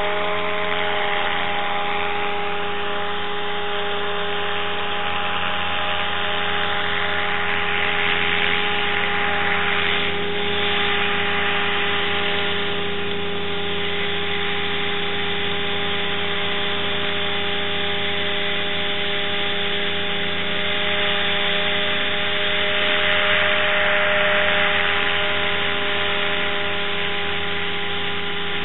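A steady machine drone: several constant tones under a strong hiss, running unchanged throughout.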